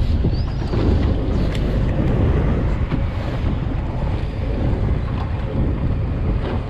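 Wind buffeting the microphone over steady sea and boat noise aboard a fishing boat at sea, with a few faint knocks.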